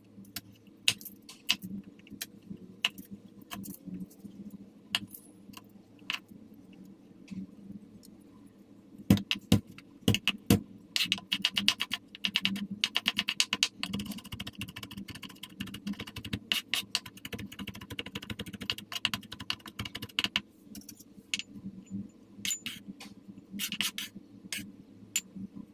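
Chef's knife chopping garlic on a bamboo cutting board. Scattered single strikes at first, then fast, steady chopping from about nine to twenty seconds in as the garlic is minced, then a few slower strikes near the end.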